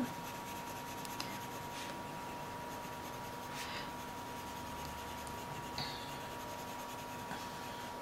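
Faber-Castell Polychromos coloured pencil shading gently on paper: a faint, soft scratching of the lead.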